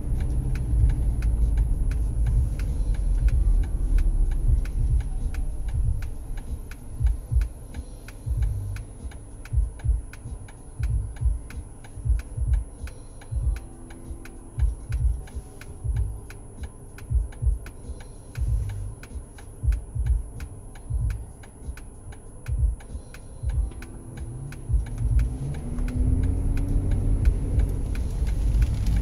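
Car cabin road noise while driving. The car then slows and idles, with a low throbbing pulse about once a second. Near the end the engine note rises as the car pulls away.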